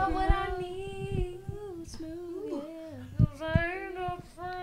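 Female voices singing a cappella, with long held and sliding notes and no instruments. A few low knocks, the loudest about three seconds in.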